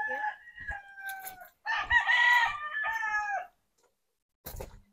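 A rooster crowing: one crow of several drawn-out notes over about three and a half seconds, the last note falling away. A brief knock follows near the end.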